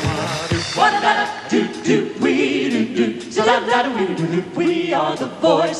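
A vocal group of two men and two women singing together in harmony, with little or no instrumental backing.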